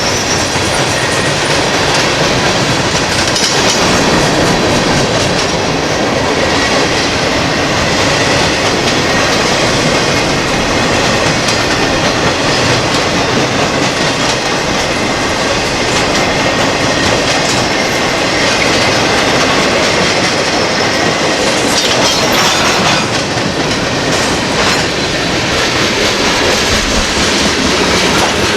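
Freight train cars rolling past at speed: a steady loud rumble of steel wheels on rail with a clickety-clack over the joints and some high wheel squeal.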